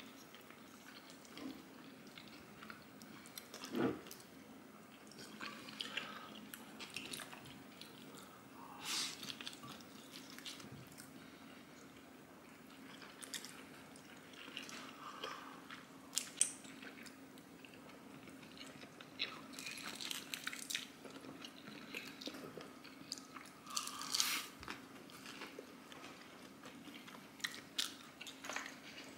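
Close-up eating sounds from cream pasta and pizza: soft chewing and small mouth sounds, with scattered light clicks of a fork and spoon against a ceramic bowl, over a faint steady hum.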